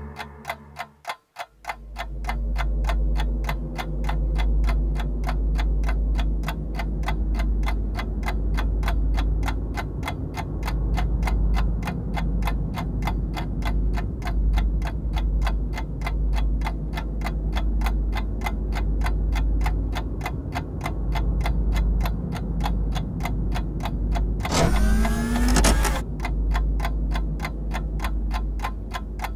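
Suspense soundtrack of rapid, even clock-like ticking over a deep, steady bass drone. About 25 seconds in, a short rising sweep passes through it.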